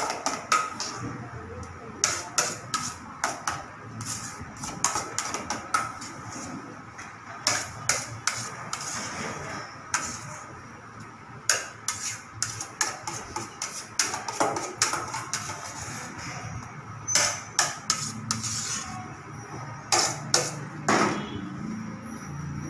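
Metal kitchen utensils clinking and tapping against mixing bowls in quick irregular clusters of sharp clicks and knocks, over a faint steady tone.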